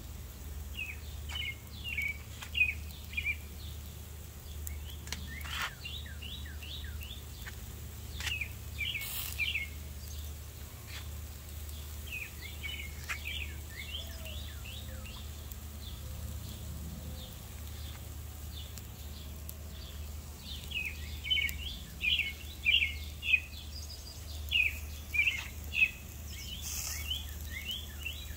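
Birds chirping in runs of short, quick, repeated notes, in several bursts, over a steady low hum, with a few sharp clicks.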